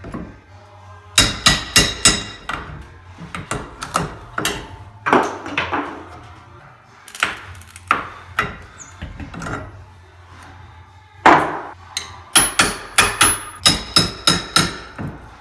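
Hammer blows during drywall work: a quick run of strikes about four a second near the start, scattered single blows, then another quick run near the end.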